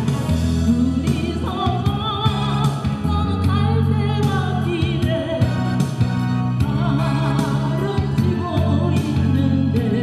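A woman singing a Korean trot song with vibrato into a handheld microphone over instrumental accompaniment. Her voice comes in about a second in.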